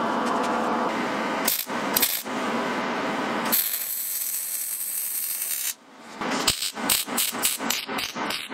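MIG welder arc crackling and sizzling as a sheet-metal belt guard is welded on. It runs in longer stretches, then a steadier hiss that cuts off, then a quick series of short tack-weld bursts near the end.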